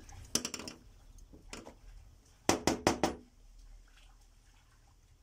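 Sharp metal clicks and knocks from a scooter carburetor and a screwdriver being handled on a steel workbench. A few light knocks come in the first second and a half, then a quick run of three or four sharper knocks about two and a half seconds in.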